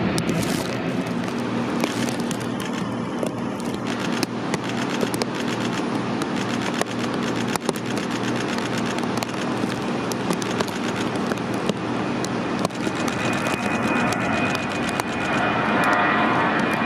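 Boeing 737-800 jet engines at takeoff thrust as the airliner lifts off and climbs away: a steady rumbling roar full of crackle. A high engine whine joins in near the end.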